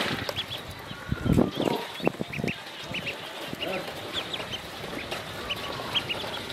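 A group of ducklings peeping: many short, high chirps overlapping throughout. A few low knocks and rustles come about one to two and a half seconds in.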